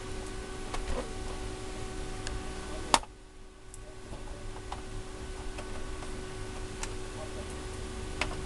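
Scattered light clicks and taps of hands handling an opened PS4 console's plastic chassis, with one sharp, louder click about three seconds in, over a steady low hum.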